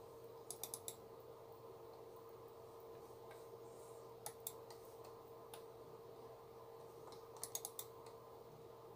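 Computer mouse clicking in quick runs: about four clicks near the start, two or three in the middle, a single one, and another run of four or five near the end. A faint steady hum underneath.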